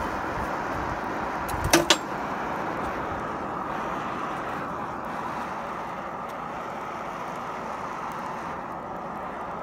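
Small Dayton electric blower running steadily, forcing air into a coal forge's fire pot as the fire catches and flames up. Two sharp clanks come close together about two seconds in.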